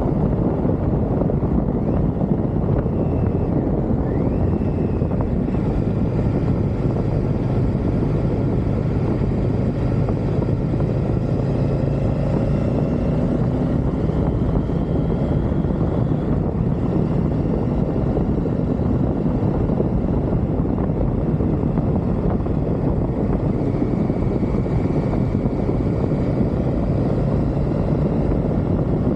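Triumph Tiger motorcycle running at a steady road pace, its engine note rising and falling a little, under a heavy rush of wind and road noise.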